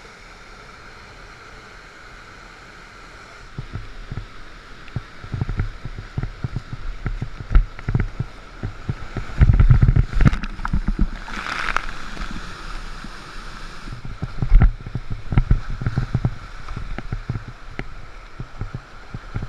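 Kayak on a whitewater river: rushing water around the boat, with irregular splashes and low knocks of water against the boat and camera. About three and a half seconds in it grows much louder and busier as the kayak runs into rougher water, with a big splash near the middle.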